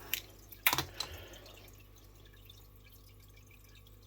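A few sharp clicks and taps in the first second, the loudest a little under a second in, from a fid being handled and screwed onto the melted end of a paracord strand.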